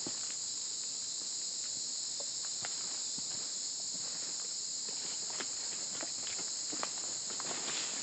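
Steady, high-pitched rainforest insect chorus running throughout, with hikers' irregular footsteps on the leaf-litter trail.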